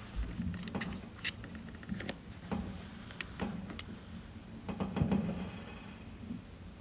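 Fireworks popping and crackling at a distance: scattered sharp pops at uneven intervals, with a cluster and the loudest bang a little after five seconds.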